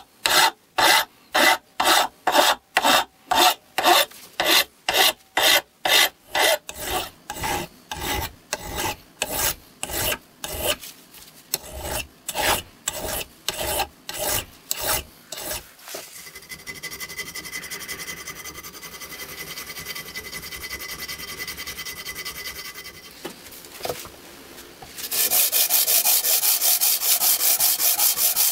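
Hand file stroking over the cast-iron body of a Stanley 110 block plane, about two strokes a second, the strokes growing fainter after the first few seconds. A fainter steady scraping follows. Near the end comes fast, louder scrubbing as the plane's sole is rubbed on sandpaper over a flat stone slab to flatten it.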